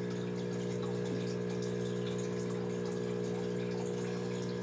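Aquarium pump running with a steady hum, over the constant hiss and bubbling of aerated tank water.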